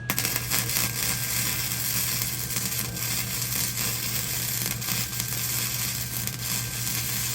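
Electric welding arc crackling and sizzling steadily as a weld is run on the steel of a smoker grill, starting and cutting off sharply.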